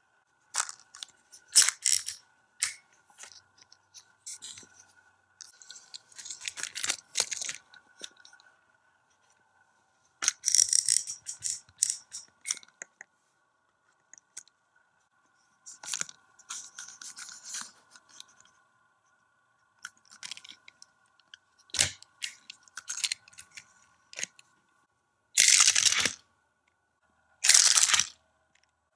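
Plastic Hot Wheels Auto Dealership playset worked by hand: scattered bursts of clicking and scraping as its yellow turntable is turned and a die-cast car is moved on it, with two longer, louder bursts near the end.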